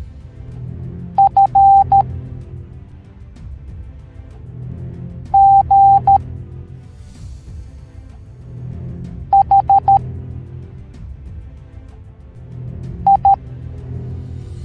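Morse code beeps in a steady, high single tone, sounded as four letters about four seconds apart: F (dot dot dash dot), G (dash dash dot), H (four dots), I (two dots). Behind them runs background music with a low, pulsing drum-like beat.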